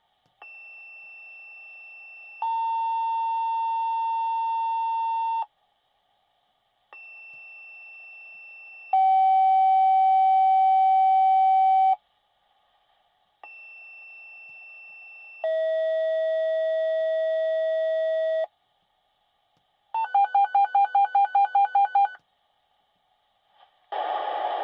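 Fire department dispatch tone-out on a radio pager: three two-tone sequential pages, each a quieter high tone of about two seconds followed by a louder, lower steady tone of about three seconds, the lower tone a step lower in pitch each time. Then a quick run of about a dozen beeps, and the radio channel opens near the end.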